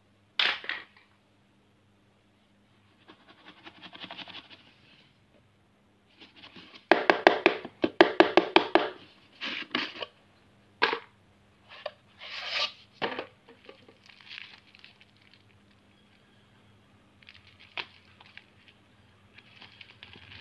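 Hands handling a plastic toy money box: sharp plastic clicks and a fast clattering of hard plastic as its cap is worked open, then soft crinkling of sticker sheets and wrappers.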